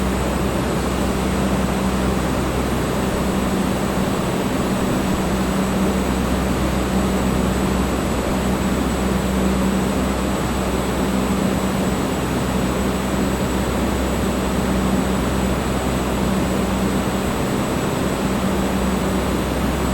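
Electric fan running steadily: an even whooshing rush of moving air over a constant low motor hum.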